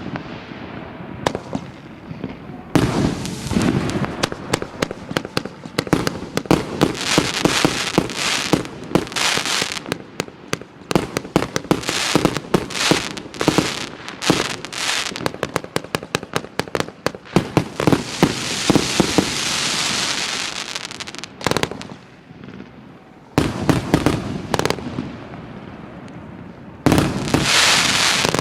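A 228-shot fireworks cake with a fan section, 30 and 50 mm calibre, firing: a fast string of launch thumps and bursts, then a steady hiss lasting a few seconds, then two short volleys near the end.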